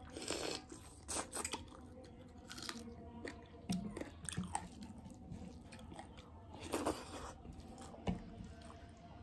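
Close-miked eating: chewing and biting on a mouthful of rice and mutton curry eaten by hand, with several short, sharp crunches and mouth smacks spread through it.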